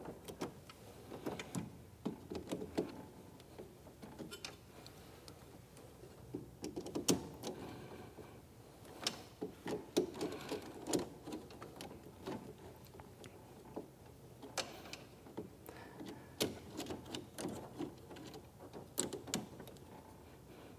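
Faint, irregular clicks, small knocks and scrapes of a screwdriver working the terminal screws of a Hager RCBO as supply wires are pushed into its terminals.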